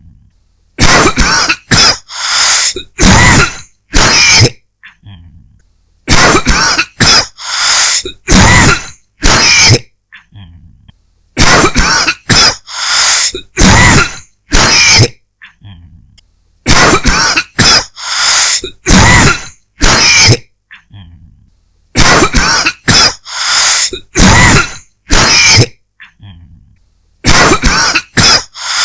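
A person's dry cough, in fits of four or five harsh coughs, a new fit starting about every five seconds in much the same pattern each time.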